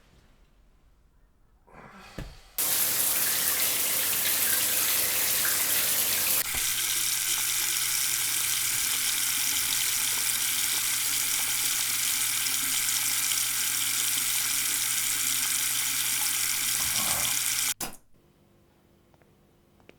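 A water tap is turned on after a faint knock and runs steadily into a sink for about fifteen seconds, its sound shifting a few seconds in, then is shut off abruptly.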